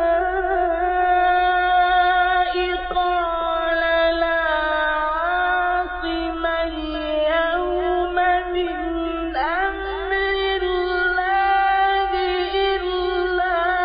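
A man's voice reciting the Quran in the melodic mujawwad style, holding long drawn-out notes with ornamented turns of pitch. A new phrase opens with a rising glide about nine seconds in. A steady low hum runs underneath.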